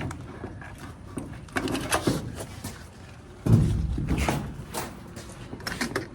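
Irregular knocks and clunks of a clothes dryer being handled, with the loudest thump about three and a half seconds in.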